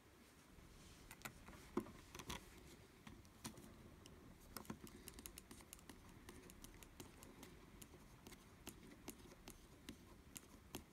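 Faint, irregular light clicks and ticks of a small precision screwdriver and tiny screws against an iPhone 5, as its plate is screwed back on during reassembly.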